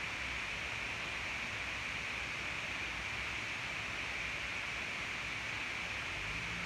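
Steady, even hiss with nothing else standing out: the background noise of the recording.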